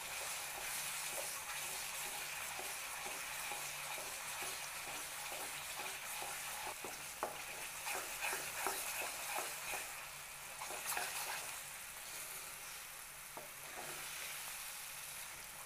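Wooden spatula stirring thick amla halwa in a pot, with repeated short scraping strokes against the pan over a steady sizzle as it cooks in ghee near the end of cooking.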